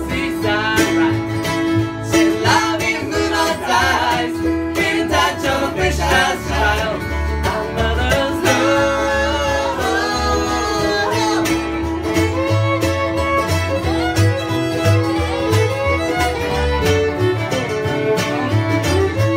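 Acoustic bluegrass-style band playing an instrumental break: a fiddle carries the melody, bowed at the microphone, over strummed acoustic guitar, mandolin and upright bass keeping a steady beat.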